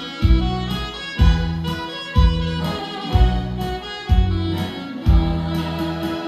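Instrumental intro of a trot song: a heavy bass beat about once a second under a sustained string melody.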